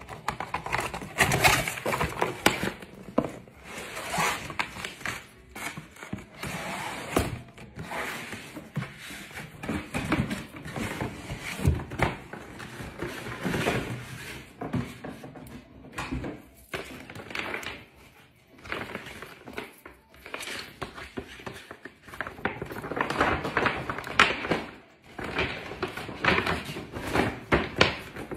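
Cardboard box flaps and a large paper shopping bag being handled and pulled out of a box: irregular rustling and crinkling with scrapes and knocks.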